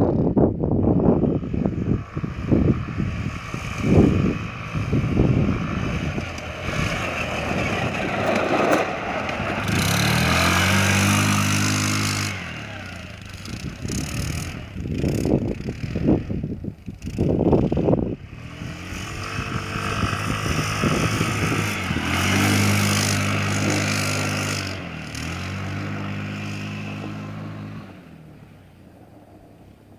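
Quad bike (ATV) engine revving as it is ridden past on a dirt track. The engine note climbs and drops in steps twice, about ten seconds in and again past twenty seconds, and fades away near the end as the quad moves off.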